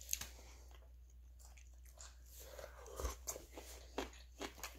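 A person faintly chewing and crunching food, with a few short clicks of a plastic fork on the plate, the sharpest right at the start.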